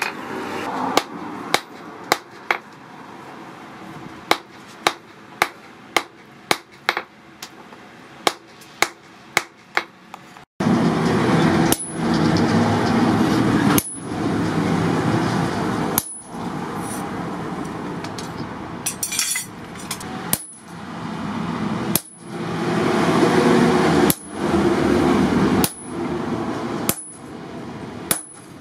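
A blacksmith's hammer strikes hot steel on an anvil, quick even blows about two a second. About ten seconds in the sound cuts to slower, heavier ringing blows roughly every two seconds, driving a drift to open the eye, with a steady rushing noise between them.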